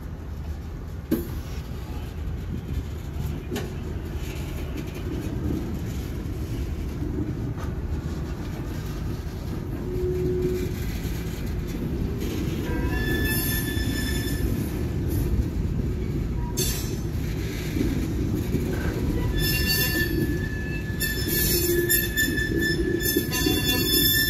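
Empty covered hopper cars of a freight train rolling past with a steady low rumble of wheels on rail. High-pitched wheel squeal comes and goes from about halfway, settling into one sustained squeal near the end.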